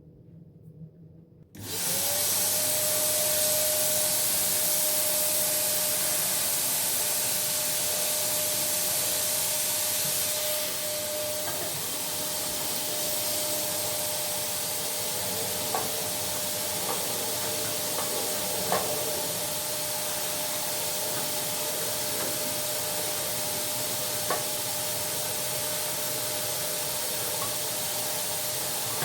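An electric motor-driven appliance switches on about a second and a half in, spinning up quickly, and then runs steadily with a rushing airflow and a steady hum. A few light knocks sound over it later on.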